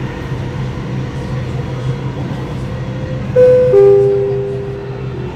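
Dubai Metro train running with a steady low hum. About three seconds in, a two-note falling chime rings out and fades, the signal that comes before a next-station announcement.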